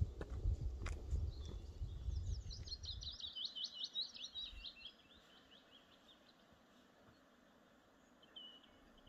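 A songbird sings a rapid run of short, high, downward-sweeping notes lasting about two seconds, with one more short note near the end. A low rumble with a few clicks is loudest at the start and stops about three seconds in.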